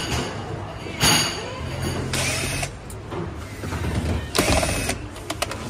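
Metal scraping and clattering as a long metal rod is worked through a ride-on kart's steel chassis, in several short rattles with a few sharp clicks near the end.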